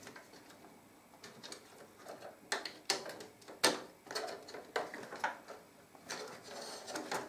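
Faint, scattered small clicks and rubbing of a DDR3 RAM stick being worked out of its motherboard slot by rubber-gloved hands, the sharpest clicks a little after two and a half, three and nearly four seconds in.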